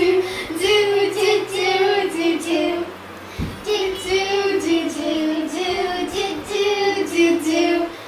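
Young girls singing a tune unaccompanied, in two phrases of held, wavering notes, with a short break and a soft thump about three seconds in.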